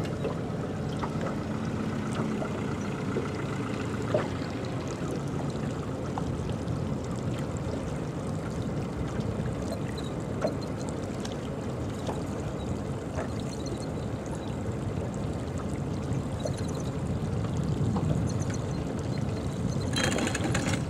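Steady wash of water around a small fishing boat on a river.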